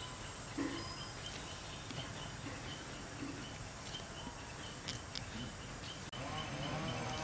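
Outdoor ambience with insects chirping: a faint high chirp repeating about twice a second over a steady hiss, with a few light clicks. About six seconds in the sound cuts abruptly, and a wavering pitched call begins.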